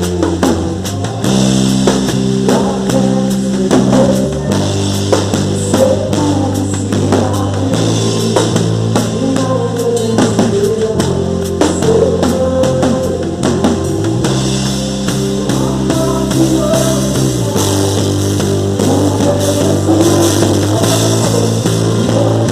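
A live band playing a worship song: drum kit and bass under held chords that change every few seconds, with a melody line weaving above.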